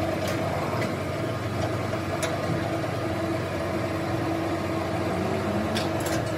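A hydraulic axle-straightening press's pump motor running with a steady hum, with a few faint clicks.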